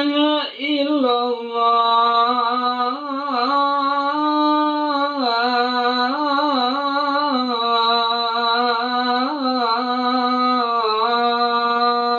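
A man chanting the adhan, the Islamic call to prayer, into a handheld microphone, in long held notes that waver and turn in pitch.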